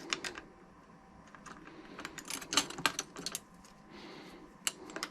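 Handling clicks of a blade being fitted into the blade clamp of a Greenworks reciprocating saw: a few clicks near the start, a busier run of clicks between about two and three and a half seconds in, and two more near the end.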